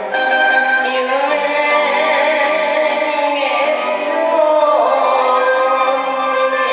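Japanese popular song near its close: backing music with a woman singing long held notes into a microphone.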